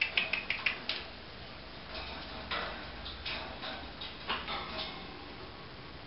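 Light clicking and rattling of a wire bird cage being handled. A quick run of clicks comes in the first second, then scattered fainter clicks and rustles.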